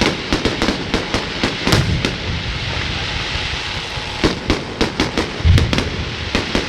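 New Year's fireworks going off: a rapid string of sharp cracks and pops over a dense crackle, with deeper booms about two seconds in and again near five and a half seconds.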